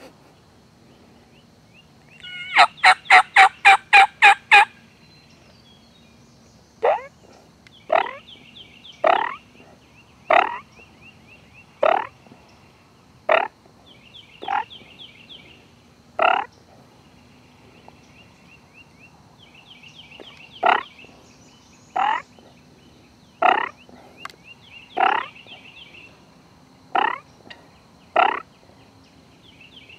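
Turkey calls. A loud run of about nine evenly spaced yelps comes a couple of seconds in, then a string of short rising calls, one every second or so, with faint raspy chatter between them.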